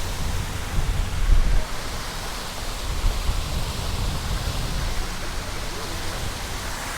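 Small cascading waterfall, a water feature running down beside a stairway, giving a steady splashing hiss, with uneven low rumbling underneath.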